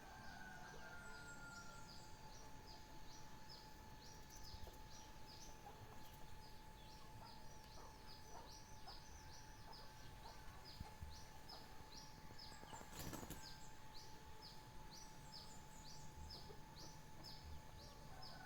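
Faint birdsong: a bird repeating a short, high, falling note about three times a second without pause, over a faint steady hum, with one brief crackle about two-thirds of the way through.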